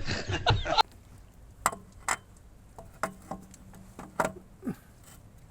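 Scattered sharp clicks and knocks, about six over four seconds, of hand tools and metal parts being handled during a vehicle repair. Before them, a short loud noisy stretch cuts off suddenly under a second in.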